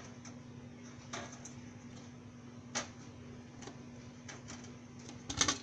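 A few light clicks and knocks as bati dough balls are set down on the metal wire rack of a stovetop bati oven, over a faint steady low hum.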